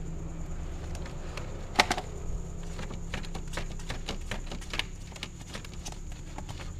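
Cats rummaging and feeding inside a paper bag: irregular small clicks, ticks and crinkles, with one louder click about two seconds in, over a steady low hum.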